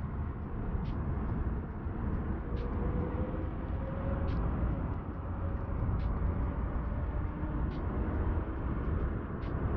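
Steady, choppy low rumble of wind buffeting the microphone, with a faint short high tick repeating about every second and a half.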